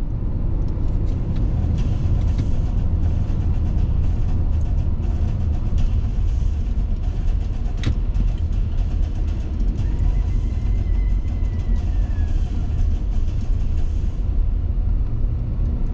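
Steady low rumble of road and engine noise heard inside a moving car's cabin, with one sharp click about eight seconds in.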